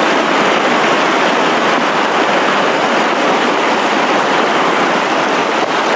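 Shallow mountain river rushing and foaming over rocks, heard from right above the water: a loud, steady rush.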